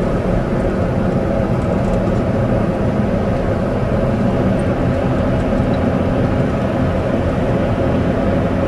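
A car driving, heard from inside the cabin: steady engine and road hum with no change.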